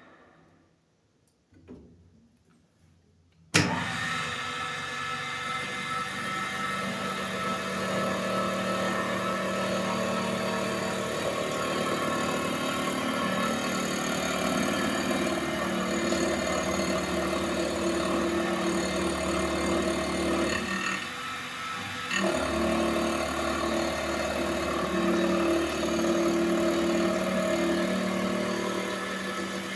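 Sharpening machine starting suddenly about three and a half seconds in, then running steadily with a hum under a hiss. Its sound drops briefly about 21 seconds in, then comes back.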